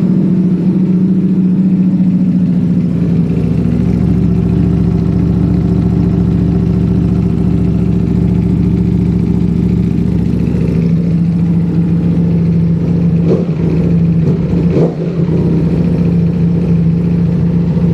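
Ducati Panigale V4S's 1103 cc V4 engine idling steadily. Its idle settles slightly lower about eleven seconds in.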